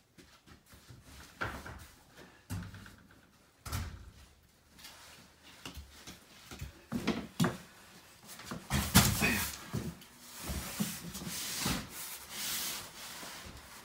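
Cardboard cases of toilet paper being handled and stacked: scattered knocks and thumps as boxes are carried and set down, the loudest about nine seconds in. Near the end, cardboard scrapes against cardboard as a case is slid onto the top of the stack.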